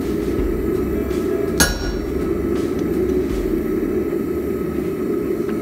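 A hammer strikes a hand punch held on red-hot flat bar on the anvil: one sharp, ringing blow about a second and a half in and another at the very end. A steady rushing noise runs underneath.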